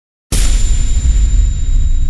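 A loud boom sound effect, like an explosion, hits suddenly about a third of a second in and rumbles on, slowly fading.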